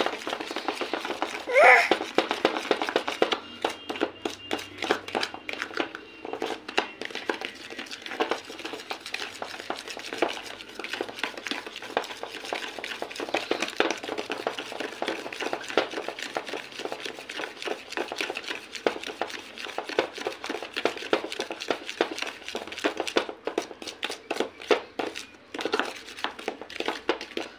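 A metal spoon stirring and scraping a damp baking-soda and citric-acid paste in a plastic bowl: a quick, continuous run of small scrapes and clicks. One short, louder pitched sound about a second and a half in.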